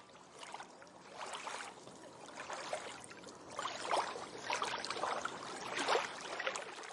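Faint water sound: small waves lapping and trickling, with soft swells every second or so.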